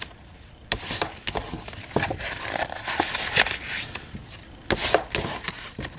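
Card stock being folded by hand along its score lines: irregular papery rustles and sharp creasing clicks.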